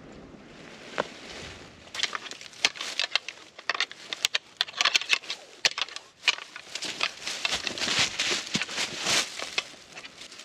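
Deer rattling: rapid, irregular clicks and clashes, made to imitate two bucks sparring, starting about two seconds in and going on in bursts.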